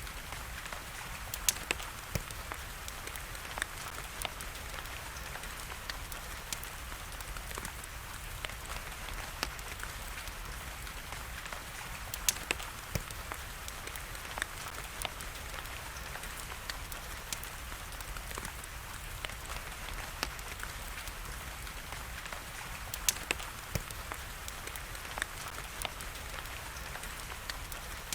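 Steady rain, with a wood fire crackling through it: scattered sharp pops, the loudest about a second in, near the middle and late in the stretch.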